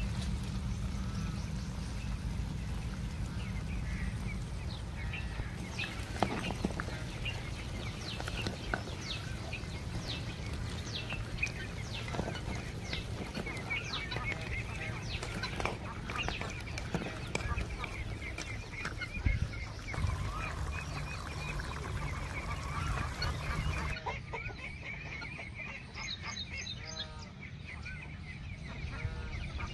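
Outdoor ambience with birds calling, some honking like fowl, over a steady low hum, with scattered short clicks and knocks. Near the end the sound changes and clear high bird chirps stand out.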